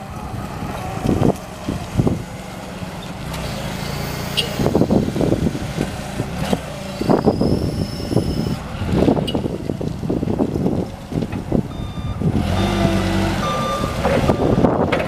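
2000 Yale GLP065T LPG forklift engine running as the truck drives and turns, with many irregular knocks over the steady engine drone. A reversing beeper begins sounding short repeated beeps near the end.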